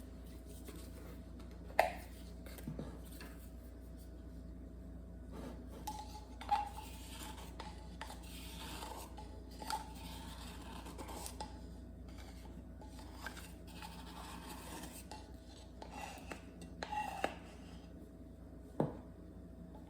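Teaspoon scooping and leveling baking powder, with scattered clinks, taps and scrapes of the spoon against the container and bowl over a steady low hum.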